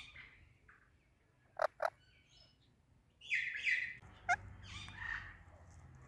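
Pet Indian ringneck and Alexandrine parakeets calling: two short, sharp chirps in quick succession about a second and a half in, then a run of harsher squawking calls from about three seconds in, with one sharp note in the middle.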